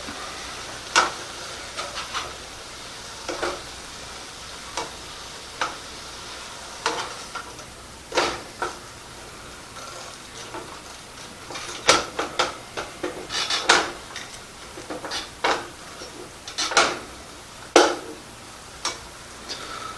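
Venison burgers sizzling in a frying pan, with irregular clicks and scrapes of a cooking utensil against the pan as they are turned, more often in the second half.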